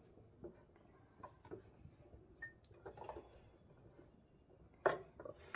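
Faint rustles and small clicks of fabric being handled as a needle and thread are worked through it by hand in basting (tacking) stitches, with a louder rustle about five seconds in.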